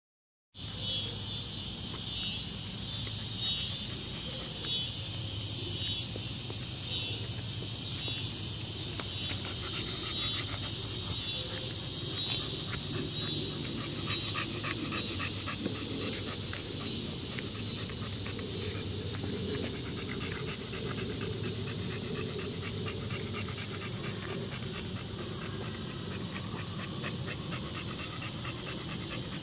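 American Bully dog panting with its mouth open, a quick, even run of breaths.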